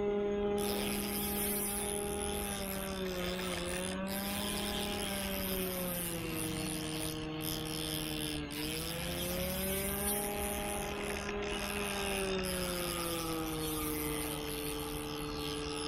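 An engine running steadily, its pitch slowly falling and rising again several times.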